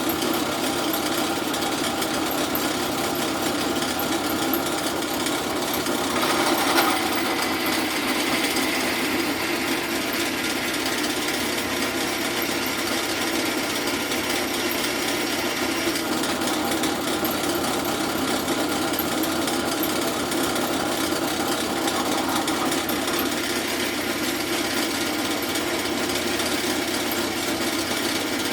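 Drill press running steadily while drilling a hole through a metal exhaust flange, with a harsher cutting sound from about six seconds in to about sixteen seconds in as the bit bites into the metal.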